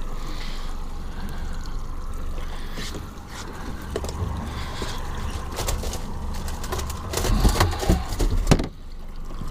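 Steady low rumble of a boat out on the water, with a cluster of knocks and thumps about two seconds before the end.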